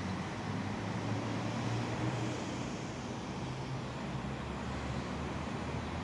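Steady low background rumble with hiss, no distinct events.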